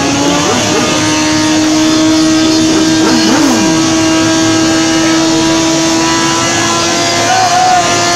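Sport motorcycle engines revving: one is held at high revs in a steady tone that creeps slightly higher, while another blips down and back up about three seconds in.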